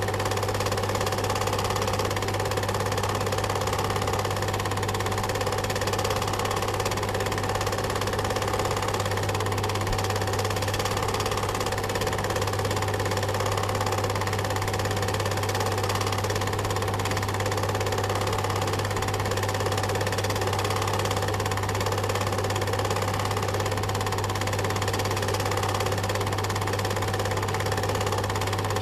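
Film projector running, a continuous mechanical whirr with a strong, steady low hum.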